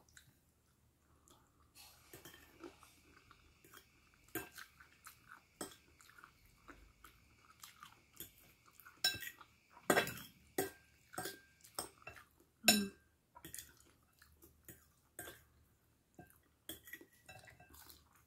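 Chewing and a metal fork clinking and scraping on a ceramic plate, a string of short sharp clicks with the loudest clinks about ten and thirteen seconds in.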